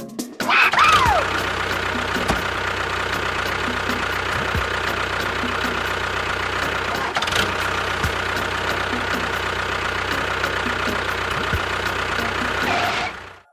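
A small engine running steadily. It starts up within the first second with a brief falling whine and stops shortly before the end.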